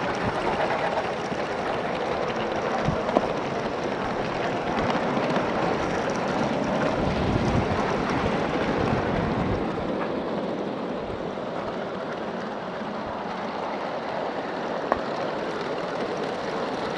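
Live-steam Accucraft Pennsylvania T1 model locomotive running along garden track: a steady hissing and rumbling run with no distinct beat, and two sharp clicks, about three seconds in and near the end.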